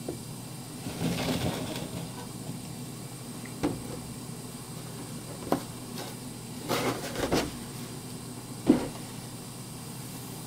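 Plastic gallon water jug being handled on a tabletop after pouring water into a glass terrarium. There is a short rush of noise about a second in, then scattered clicks and knocks, and the loudest is a thump near the end, over a steady hiss.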